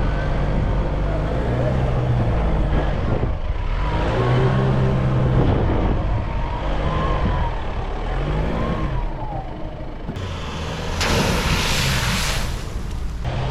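Four-wheel-drive vehicle's engine running on an off-road track, its revs rising and falling repeatedly. About eleven seconds in, a loud rushing noise takes over for a couple of seconds.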